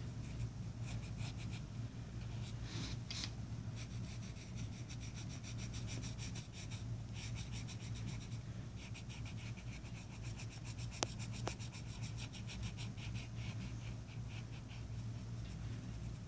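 Colored pencil scratching on paper in quick, even back-and-forth shading strokes, several a second, in runs broken by short pauses. A steady low hum sits underneath, and two sharp ticks come about eleven seconds in.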